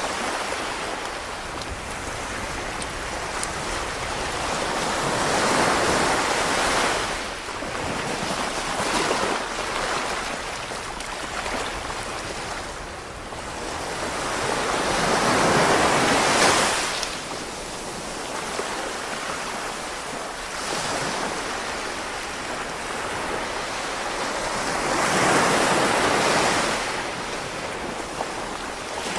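Small sea waves washing onto the shore in three slow surges about ten seconds apart, each swelling up and then falling away.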